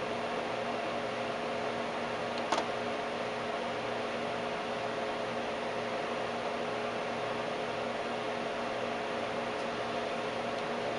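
Steady running hum and fan noise from a vacuum-tube Tektronix 549 oscilloscope, several fixed tones over an even hiss, with one short click about two and a half seconds in.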